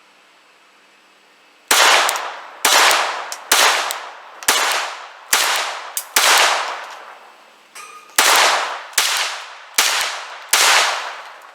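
Glock G44 .22 LR pistol firing a ten-round magazine of Federal 40-grain bulk ammo, every shot followed by a short ringing tail. There are six shots about a second apart, a pause of about two seconds, then four more. The magazine runs through without a malfunction.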